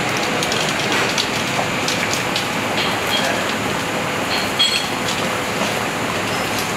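Steady rushing noise of a commercial pasta cooker at a rolling boil, with the kitchen extraction running, and a few light clicks along the way.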